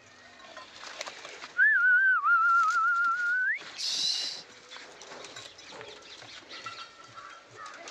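A person whistling one wavering note for about two seconds that glides upward at the end, followed by a short hiss.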